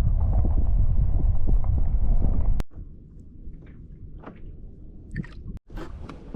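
Kayak on the sea: a loud, low rush of water and hull noise that stops suddenly about two and a half seconds in. After that come quieter water sounds and scattered light knocks on the hull.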